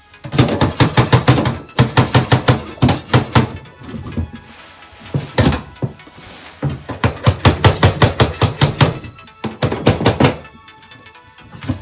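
Cardboard box being opened: packing tape being torn and peeled off, heard as rapid crackling and clicking in several bursts of a second or two, with short pauses between.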